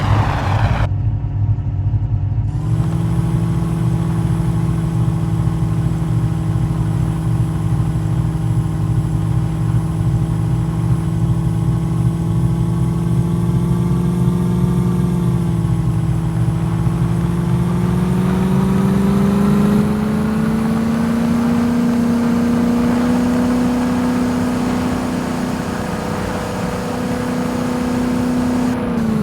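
Jeep engine running steadily while under way, its pitch climbing slowly about halfway through as it speeds up, then dropping suddenly near the end.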